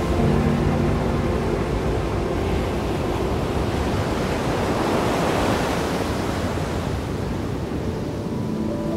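Ocean surf: a wave rushing in, swelling to its loudest about halfway through and then washing back. A few held low music notes fade in the first second and come back near the end.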